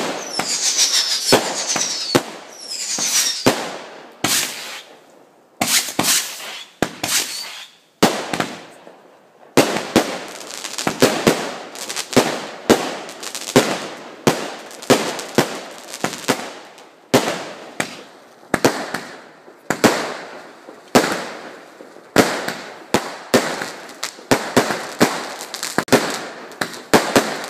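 Aerial fireworks bursting overhead in a rapid barrage: a long string of sharp bangs, each trailing off briefly. There are high whistling streaks in the first few seconds and a sparser stretch a few seconds in, then steady bangs about two a second from about ten seconds in.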